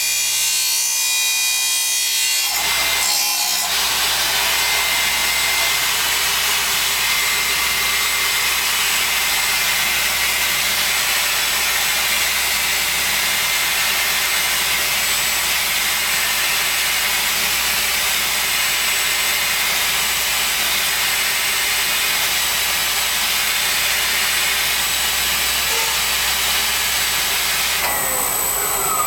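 Automatic dry abrasive cut-off saw, its wheel grinding through a cast metal part: a loud, steady harsh hiss with a thin high whine, starting about three seconds in. Near the end it gives way to tones gliding in pitch.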